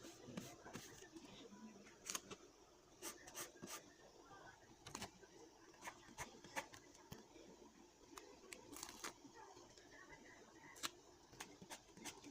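Faint paper and stationery being handled for journal decorating: scattered small clicks, snips and rustles at an uneven pace.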